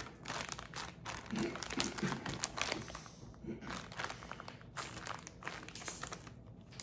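Plastic zip-top bag crinkling irregularly as hands press the air out of it and pinch its zipper seal shut.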